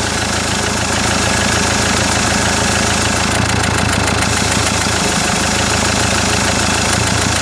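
Common-rail diesel engine idling steadily with its usual clatter.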